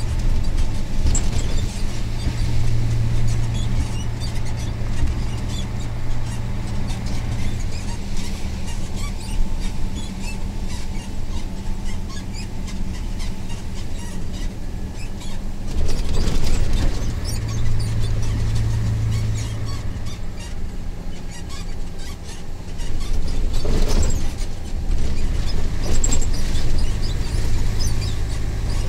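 Cab-interior sound of a Mercedes-Benz Actros MP1 2643 truck driving steadily: the diesel engine's low drone with tyre and road noise, the engine hum swelling twice. There are two brief louder, rougher stretches of noise about halfway and two-thirds through.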